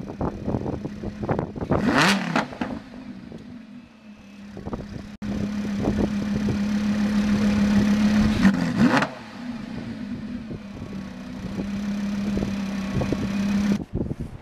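Lamborghini Huracán's 5.2-litre V10 idling with a steady hum, blipped twice, about two seconds in and again near nine seconds, the revs shooting up and dropping straight back.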